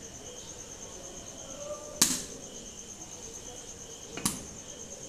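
Two sharp metallic knocks about two seconds apart: a metal ladle struck against the wok. A cricket trills steadily and high in the background throughout.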